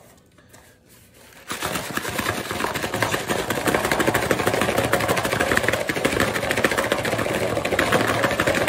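Boneless chicken wings and buffalo sauce being shaken hard inside a closed cardboard takeout box to toss them, a fast, dense rattling that starts about a second and a half in and stops near the end.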